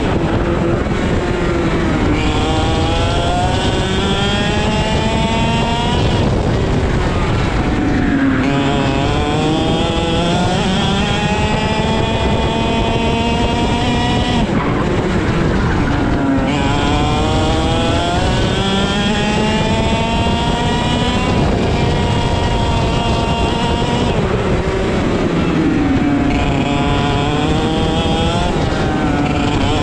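IAME X30 125cc single-cylinder two-stroke kart engine at racing speed, its pitch climbing smoothly for several seconds down each straight and dropping sharply as the driver lifts and brakes for the corners, about five times. Being direct drive with no gearbox, its revs rise and fall with the kart's speed.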